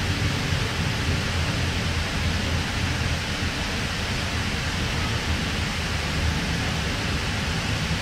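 Steady running noise inside a Sydney K-set double-deck electric train carriage in motion: a constant low rumble with an even hiss over it.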